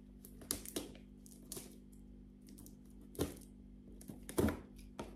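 Packing tape on a cardboard box being slit with a small hand tool: irregular clicks and scratches, the sharpest about three and four and a half seconds in.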